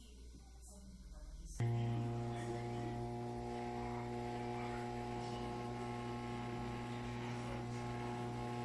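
Electrolux washing machine giving a steady electrical hum with a low buzzing tone. It starts suddenly about a second and a half in and holds unchanged, the strange noise of a machine that will not fill with water.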